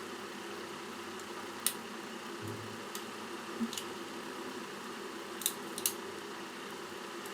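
A handful of short, sharp clicks and taps of small plastic parts being handled and fitted together as a computer mouse is reassembled, the last two close together, over a steady background hiss.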